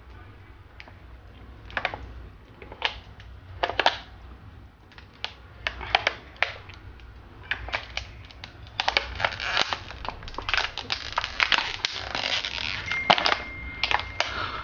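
Thin plastic water bottle crinkling and crackling as it is gripped and tipped up to drink from: scattered sharp clicks at first, then a dense run of crinkling from about nine seconds in until near the end.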